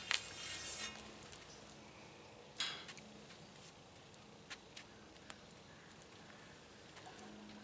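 A metal spatula scraping and swishing briefly in a steel disc-blade wok of hot water during the first second, then faint scattered clicks with a short rustle about two and a half seconds in.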